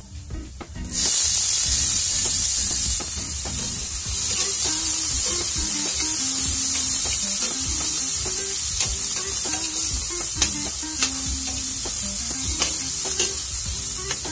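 Chopped onion hitting hot oil with browned garlic and sizzling loudly from about a second in, while a metal spatula scrapes and clicks against the pan as it is stirred.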